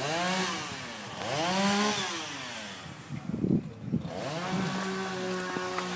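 Two-stroke chainsaw revved up and back down twice, then held at a steady high speed near the end.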